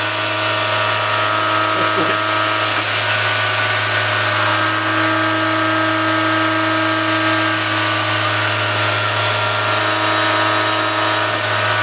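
CNC-converted RF45-type benchtop milling machine running, its spindle turning an end mill through a small part clamped in the vise. It makes a steady hum and whine with a hiss over it, and one of the tones drops out briefly a few seconds in and again near the end.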